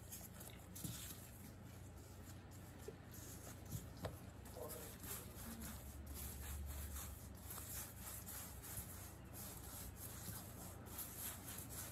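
Faint rubbing and brushing of gloved hands rolling baguette dough into a long rope on a floured granite countertop, over a low steady hum.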